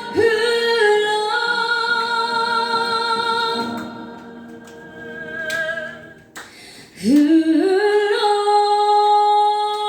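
Fusion gugak song: a female voice holds a long sung note on "흘러", then after a quieter stretch a new note slides upward about seven seconds in and is held.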